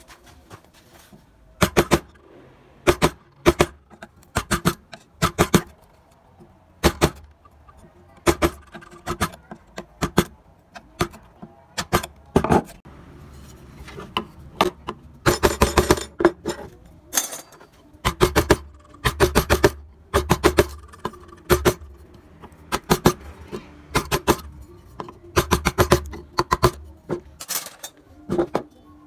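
Wood-carving chisel cutting into wood: a long run of sharp, irregular taps and cracks, often in quick clusters, as chips are cut away.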